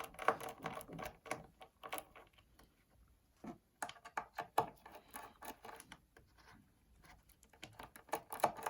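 Irregular clicks and scrapes of a screwdriver and small metal parts as the screws holding an iMac's internal speaker are undone. There is a short lull about three seconds in.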